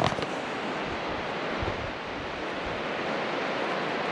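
Sea surf washing steadily on the beach, with wind buffeting the microphone in a few low thumps.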